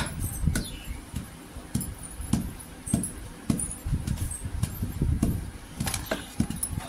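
Wooden pestle pounding roasted peanuts in a stone mortar: dull thuds about two to three a second, some with a gritty crunch as the nuts are crushed.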